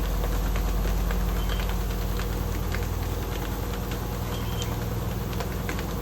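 Electrolux LM08A top-loading washing machine running: a steady low motor hum with scattered light ticks.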